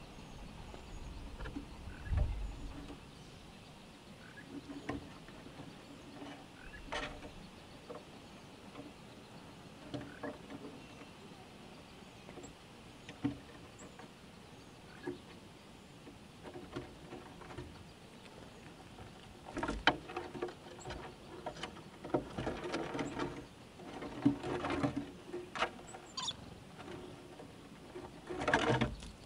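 Squirrels eating nuts and corn from a wooden box: irregular crunching and gnawing with scattered taps and scrabbles against the wood. It grows busier about two-thirds of the way through.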